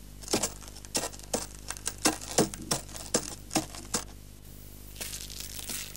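A quick, irregular run of about a dozen sharp knocks or clicks over three seconds, followed by a faint hiss near the end.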